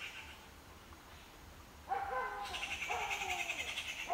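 Animal calls: a drawn-out call sliding slightly down in pitch starts suddenly about two seconds in, followed by a second, longer one, over a fast pulsing high-pitched buzz that comes back with them.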